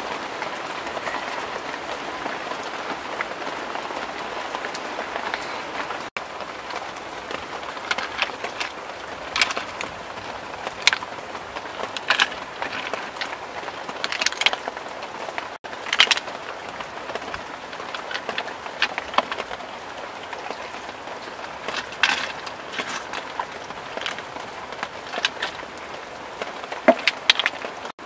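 A steady hiss of a clay pot of snails and greens cooking, then scattered clicks and scrapes as snail shells and a wooden spoon knock against a clay bowl while the dish is stirred.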